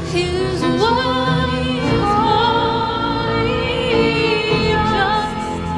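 Music: a sung Christian duet, a singing voice holding long notes with vibrato over a steady instrumental accompaniment.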